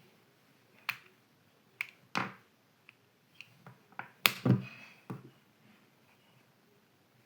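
Irregular sharp clicks and small knocks from handling a wireless earbud set, about eight in all, the loudest a pair of knocks a little past the middle.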